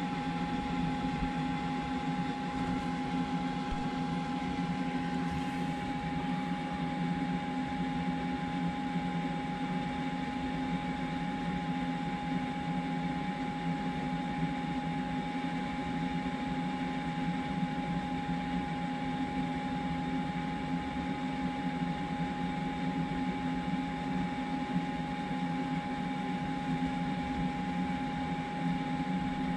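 Steady electric hum with a constant high whine from the Kings 75-litre dual-zone portable fridge's compressor and the small PC cooling fan fitted to the fridge box, running without change.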